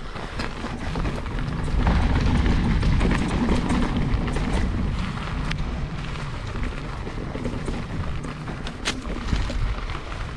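Specialized Stumpjumper mountain bike riding a dry dirt trail: a low rumble of tyres on the ground and wind on the microphone, louder for a few seconds about two seconds in, with scattered clicks and rattles from the bike.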